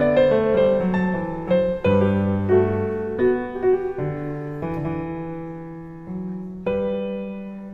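Solo piano music: a slow melody of single notes and chords, each note struck and left to ring and fade.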